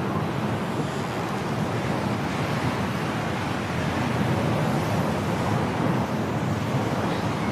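Strong snowstorm wind blowing in a steady rush, with most of its weight in a low rumble.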